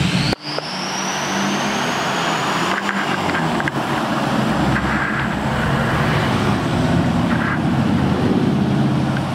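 Lifted diesel pickup trucks cruising past, their engines running loud and steady. A high whistle rises over the first few seconds and then holds.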